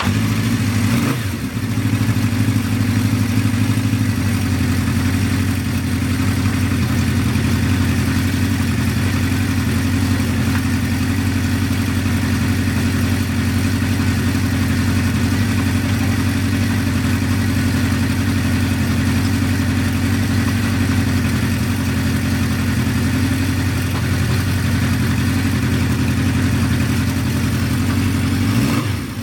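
Honda CB550 Four's air-cooled inline four-cylinder engine firing up, given a short rev about a second in, then idling steadily, with another blip of the throttle near the end. It is the engine's first run in a long while.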